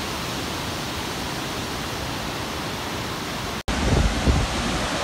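Steady rushing noise of a large waterfall, Montmorency Falls, heard from above. About three and a half seconds in it drops out for an instant and comes back louder, with more low rumble.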